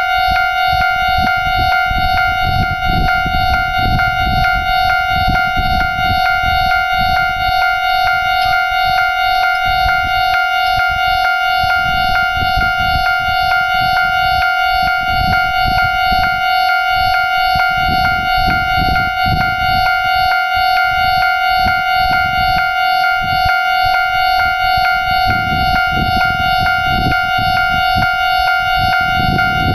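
Japanese level crossing warning alarm ringing continuously, one high electronic tone with overtones at an even level. Wind rumbles on the microphone beneath it.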